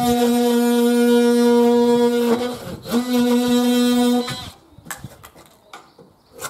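Cordless drill-driver motor running at a steady high whine for a couple of seconds, stopping briefly, then running again for about a second and a half, as it drives fixings into the PVC trim. A few light clicks follow near the end.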